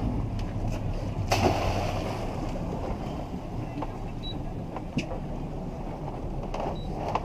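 Wind and sea around a small boat, with the low hum of its outboards idling and a few light knocks as a crab-pot line is hauled in by hand over the side.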